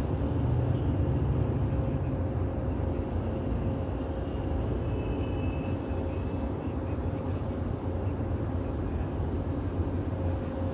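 Steady low rumble of city road traffic, with a faint steady hum running under it.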